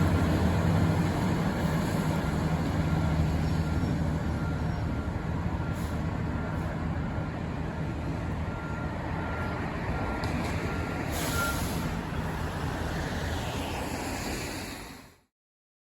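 Fire truck's diesel engine running while its reversing alarm beeps at a steady pace, with a brief hiss about eleven seconds in. The beeping stops near the end and the sound fades out.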